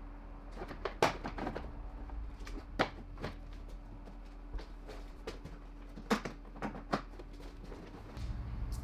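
Scattered sharp clicks and knocks of a plastic front bumper cover being pushed and seated against the car, about seven in all, over a faint steady hum.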